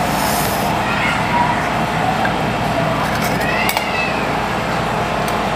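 Steady rushing background noise, with a few light clicks of a metal serving spoon against steel dishes a little past the middle.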